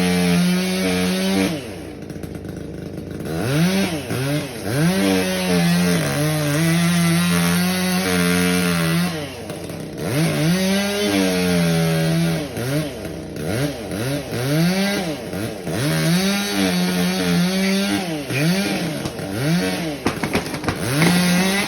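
Two-stroke chainsaw cutting cedar. It runs at a steady full throttle for several seconds at a time, with quick revs up and down between cuts, and drops briefly to idle about two seconds in.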